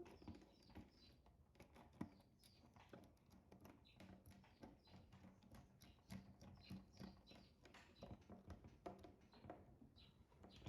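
Faint, irregular small clicks and taps of a screwdriver and wire working a contactor's terminal screw as a live wire is fastened into L1.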